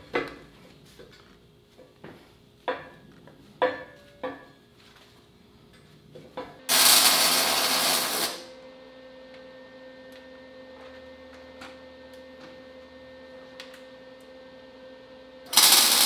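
A few light metal clinks as a part is set in place, then two tack welds from an arc welder, each a loud hissing burst about a second and a half long, about seven seconds apart. These tacks fix the return-spring tabs to the press frame, with a faint steady hum between them.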